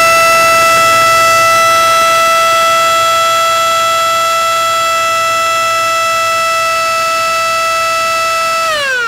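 DNI3722 220 V mechanical rotary metal siren sounding one steady, continuous high tone. Near the end its pitch starts to fall as it winds down.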